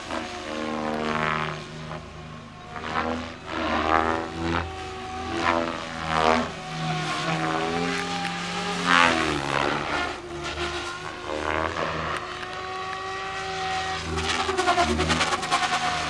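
SAB Goblin 500 electric RC helicopter flying 3D aerobatics: the motor and rotor whine sweeps up and down in pitch again and again with the manoeuvres, with whooshing swells of blade noise. Near the end the rotor noise pulses rapidly.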